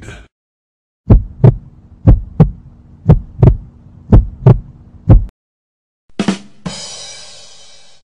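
Heartbeat sound effect: five paired lub-dub thumps about a second apart over a steady low hum, stopping about five seconds in. Then a short hit followed by a long fading, ringing noise.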